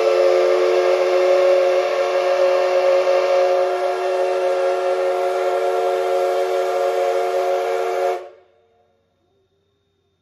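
Steam whistle of the C58 363 steam locomotive sounding one long, loud blast before departure: a steady chord of several tones with steam hiss. It cuts off sharply about eight seconds in.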